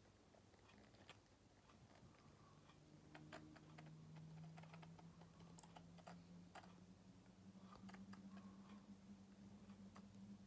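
Faint, irregular small plastic clicks and taps from fingers handling the gears and tape spool of an opened correction tape roller. A faint low steady hum comes in about two seconds in.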